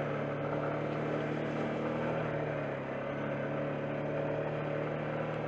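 ATV engine running steadily while riding along a gravel trail, its note easing slightly about halfway through and picking back up.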